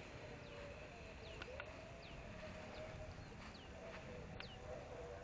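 Faint bird calls: short falling chirps repeating about once a second, over a faint wavering hum.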